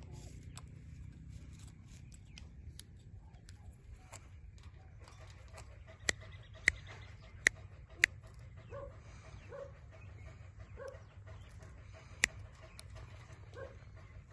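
Pet Indian ringneck parakeet, mostly quiet, giving a few sharp, very short clicks: four within about two seconds around the middle and one more a few seconds later. Soft short notes come in between, over a low steady hum.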